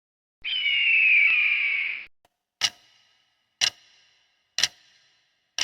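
A single loud screechy call falling in pitch, lasting about a second and a half, typical of a bird call played as a quiz clue. It is followed by a ticking clock timer, one crisp ringing tick about every second.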